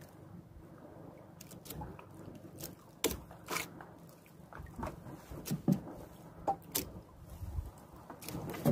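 Close handling noise from hands working at a chest-mounted action camera: scattered clicks, taps and rustles that grow busier about three seconds in, over a low steady rumble.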